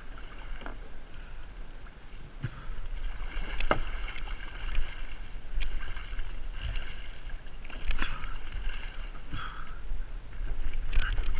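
Large flathead catfish thrashing and splashing at the surface right beside a plastic kayak as it is pulled in by hand on the line, with scattered knocks and a low wind rumble on the microphone.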